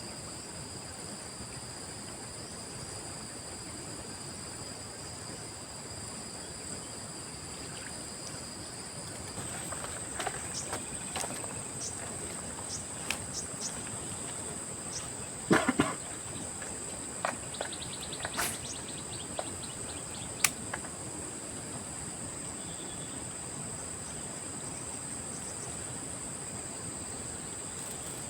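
Steady high-pitched chorus of insects, crickets or similar, trilling without a break. Through the middle come scattered sharp clicks and knocks, with the loudest cluster a little past halfway.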